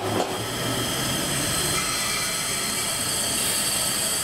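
Steam locomotive 3001 standing with a steady hiss of escaping steam.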